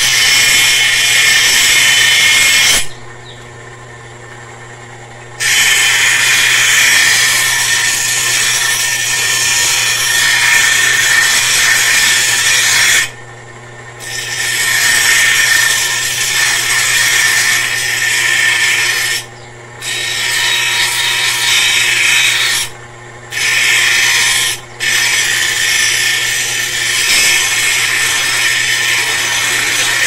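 Steel blade being sharpened on the grinding wheel of a homemade grinder driven by a washing-machine motor: a loud grinding hiss, broken by five short pauses when the blade is lifted off, with the motor's steady hum running underneath.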